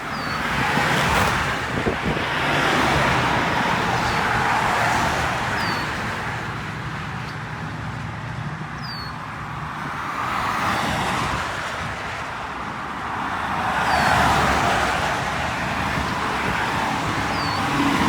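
Road traffic: several cars passing by one after another, each swelling and fading as its tyres and engine go past.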